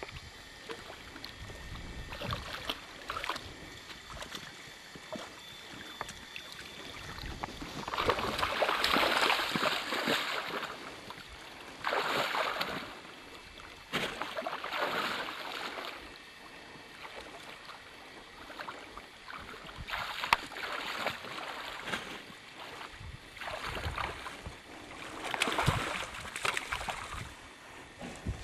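Water splashing in several irregular bursts a few seconds apart, over a low steady background of moving water.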